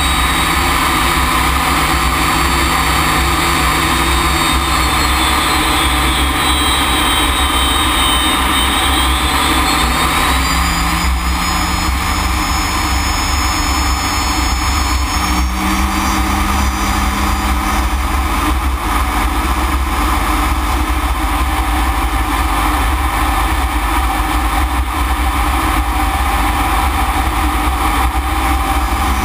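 Jet engine of a BAC Strikemaster heard from inside the cockpit, running steadily and loud. A high whine falls in pitch and climbs back up over the first fifteen seconds, and a low hum steps up in pitch about halfway through.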